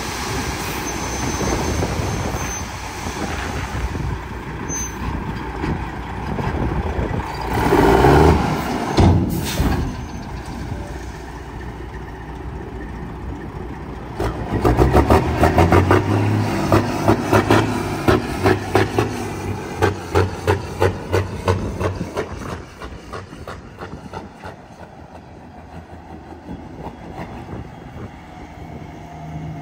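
Heavy diesel dump truck running, with a loud burst of noise and a knock around eight to nine seconds in. From about 14 to 22 seconds the engine sound pulses heavily, about two to three beats a second, then settles lower.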